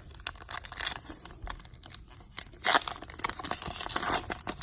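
A trading-card pack wrapper being crinkled and torn open by hand, with the loudest rip a little over two and a half seconds in.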